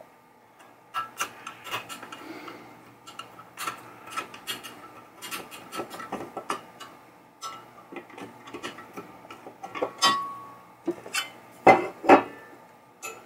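Hand screwdriver turning screws into a sheet-metal chime box frame: a run of irregular metal clicks and ticks as the screws are driven. The thin metal frame rings briefly about ten seconds in, and two louder knocks come near the end.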